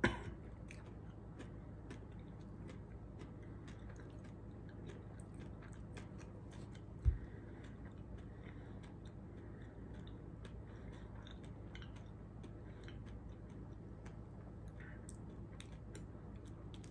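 A person chewing a crunchy, mint-flavoured super-hot snack, with many faint crisp crunches scattered throughout. A single thump about seven seconds in is the loudest sound.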